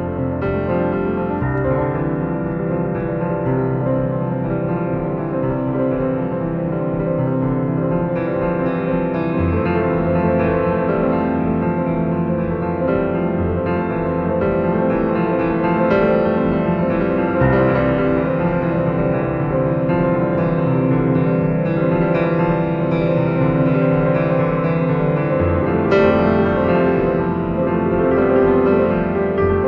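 Background music led by piano, steady and continuous, with the chords changing every few seconds.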